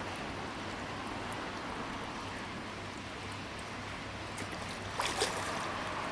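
Steady rushing hiss of water noise at the waterside, with a few brief clicks or knocks about five seconds in.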